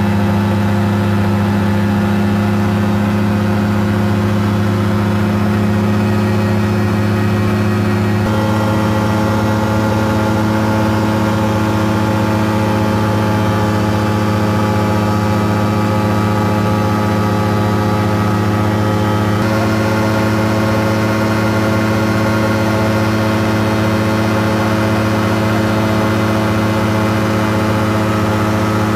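Caprice 21 microlight's engine and propeller running steadily in cruise, heard from inside the cockpit; the engine note shifts slightly and abruptly twice.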